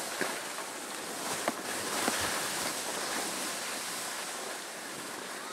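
Steady rushing hiss of skis sliding over snow, with wind on the microphone, and a few faint clicks.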